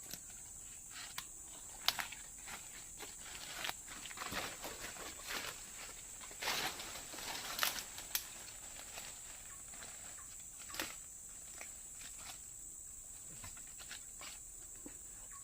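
Footsteps and rustling through forest undergrowth, irregular steps and brushing, busiest about six to eight seconds in, over a steady high-pitched drone of insects.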